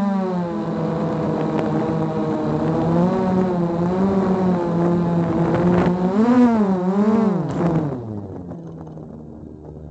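Small quadcopter drone's motors and propellers whining, heard through its own camera. The pitch wavers and swings up and down with the throttle, then sinks and fades as the drone settles onto the grass about eight seconds in.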